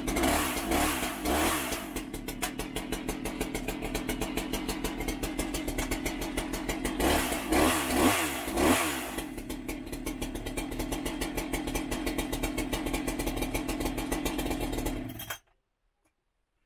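Two-stroke chainsaw idling steadily, blipped up and back down twice: once about half a second in, then again around seven to nine seconds in. It is switched off and stops abruptly about fifteen seconds in.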